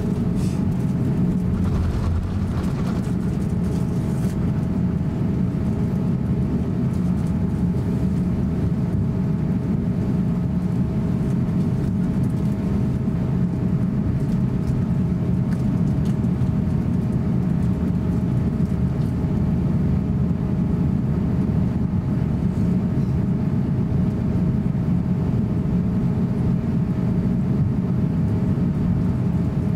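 Cabin noise of an Airbus A350-900 taxiing: a steady low rumble of its Rolls-Royce Trent XWB engines at taxi power and the rolling airframe, with a faint whine held at one pitch.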